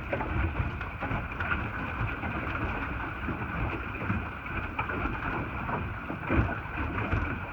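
Steady wind and water noise on a small boat on the water: wind on the microphone and water splashing along the hull.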